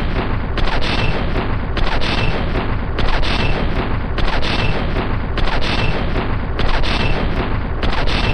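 M2 Browning .50-calibre heavy machine gun firing one long continuous burst, the shots running together into a loud, unbroken sound.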